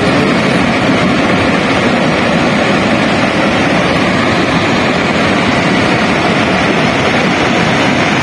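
Loud, steady rushing of a muddy river in flash flood, an unbroken wash of churning water.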